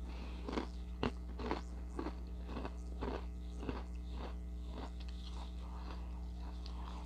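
A person chewing Ritz Toasted Chips, crisp cracker chips crunching between the teeth about twice a second. The crunches grow fainter in the last couple of seconds.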